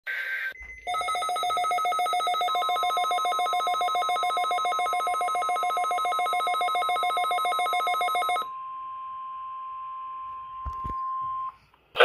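Several NOAA weather alert radios, a Midland among them, sound their fast-pulsing electronic alert beeps together for a Required Weekly Test, with a steady single tone underneath. The beeping stops about eight seconds in and the steady tone carries on alone for a few seconds more. A couple of clicks come near the end.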